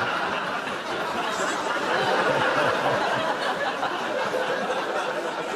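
Studio audience laughing hard after a punchline, one long, steady wave of crowd laughter.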